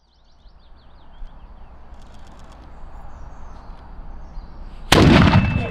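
Faint outdoor hiss with a few birds chirping, then near the end a small cannon fires: a sudden loud boom that dies away over the next second.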